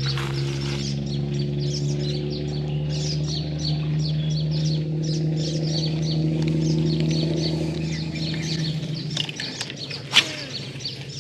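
Many small birds chirping and calling over a steady low drone that fades out about nine seconds in, with one sharp knock near the end.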